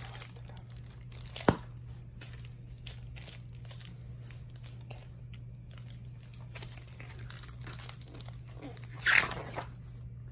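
A picture book being handled: rustling and page movement with a sharp tap about a second and a half in and a louder rustle near the end, over a steady low hum.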